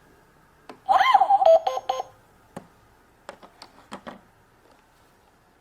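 Toy electronic cash register giving out an electronic beeping sound for about a second as an item is rung up, followed by several light clicks of its plastic buttons being pressed.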